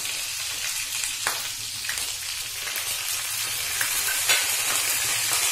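Fresh curry leaves and nigella seeds sizzling in hot mustard oil in a kadai: a steady hiss of frying with a couple of sharp spattering pops.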